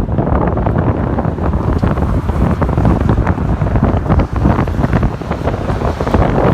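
Loud wind buffeting the microphone of a camera carried by a moving bicycle at speed.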